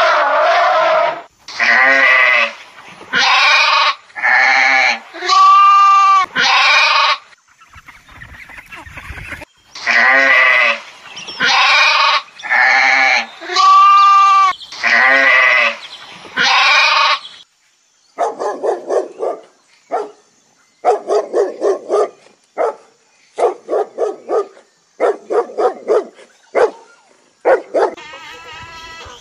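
Sheep and goats bleating: loud bleats about a second long in two runs, then many short bleats in quick groups over the last third.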